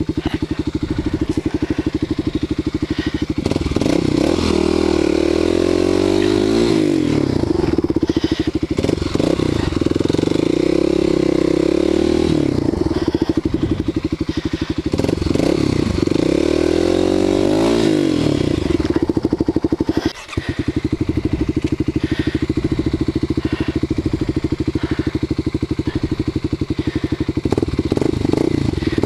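Kawasaki KLX250 dual-sport motorcycle's single-cylinder engine running on a trail, revved up and back down three times in the first twenty seconds. It dips briefly about twenty seconds in, then runs steadily.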